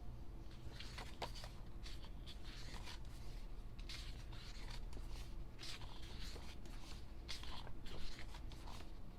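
Pages of an album photo book being turned and handled: soft, irregular paper rustles and light brushing sounds, over a low steady hum.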